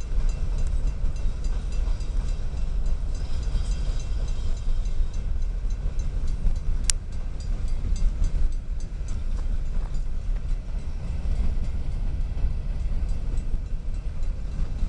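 Cars of an empty coal train rolling past, a steady low rumble of wheels on rail, with a single sharp click about seven seconds in.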